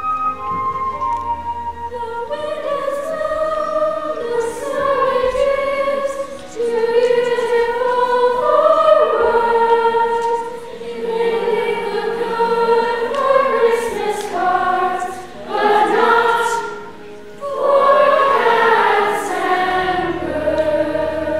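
Chorus of middle-school singers singing together in harmony, with long held notes and a few short breaks between phrases.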